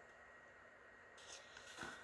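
Near silence: room tone, with two faint soft rustles in the second half.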